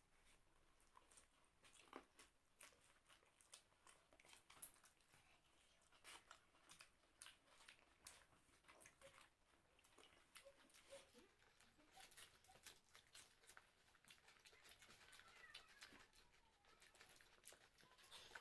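Faint, irregular chewing and mouth smacks with small clicks of people eating rice and egg curry.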